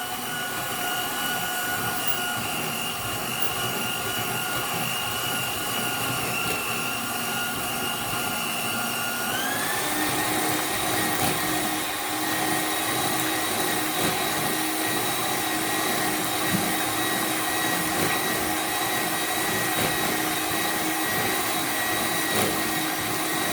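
Electric mixer motor running steadily while whipping the lemon cream filling until it thickens, stepping up to a higher speed about nine and a half seconds in.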